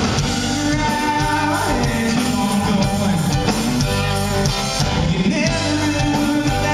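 Live rock band playing loud through a PA: electric guitars and keyboard.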